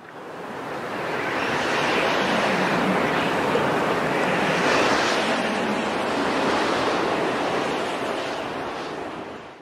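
A steady rushing noise with no tune or rhythm, fading in over the first couple of seconds, tapering near the end, then cutting off abruptly.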